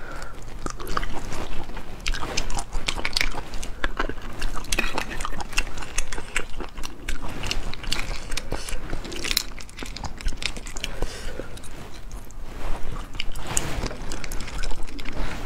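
Eating spicy sea snails: wet sucking and chewing as the meat is drawn from the shells, with irregular clicks of shells knocking together and against the plate as they are picked through.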